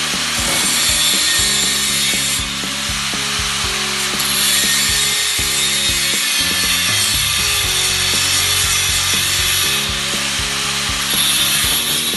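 Power tool cutting, a harsh steady hiss that changes tone a few times, over background music.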